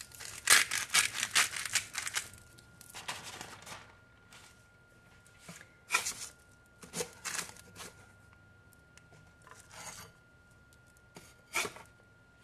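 A metal spatula scraping and rubbing against parchment paper in repeated short bursts as it slides under soft cheese rounds to lift them. The scraping is loudest in the first two seconds.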